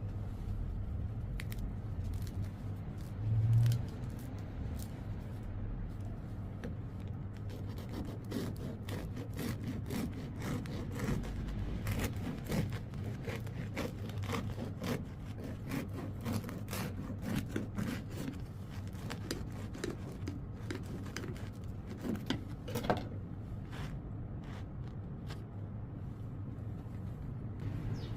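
Irregular scraping and crackling over a steady low hum, with one dull thump a few seconds in.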